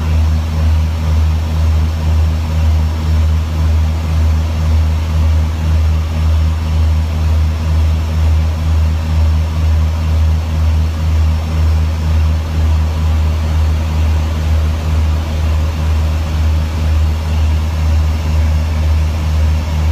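Turboprop airliner's engines and propellers heard inside the cockpit on final approach: a steady, loud low drone that throbs slowly and evenly, about twice a second.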